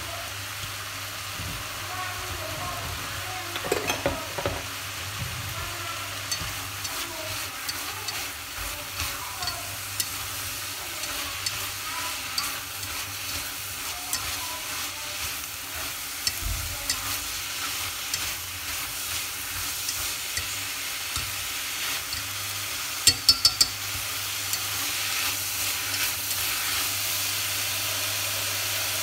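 String beans, prawns and sliced meat sizzling as they are stir-fried over high heat in a stainless steel pot, with chopsticks clicking against the pot as they toss the food. A quick run of four sharp knocks comes about three-quarters of the way in.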